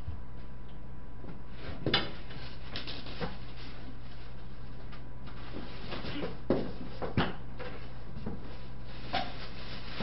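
Someone handling things out of sight: scattered rustles and four sharper knocks, the loudest about 2 seconds in, over a steady low electrical hum.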